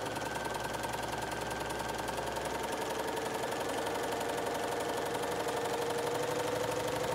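Bernina sewing machine running steadily while stitching a seam through fabric: a motor whine that drifts slightly in pitch over the fast, even patter of the needle.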